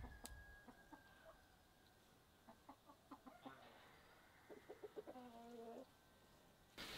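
Faint chickens clucking: scattered short clucks through the middle and a longer drawn-out call about five seconds in.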